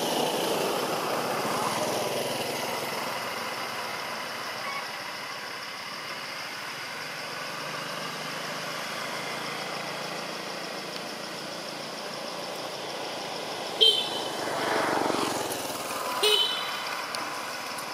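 Road traffic, a vehicle engine running past, loudest at first and easing off, with another vehicle swelling past near the end. Two short, sharp high-pitched squeaks cut through about two seconds apart near the end.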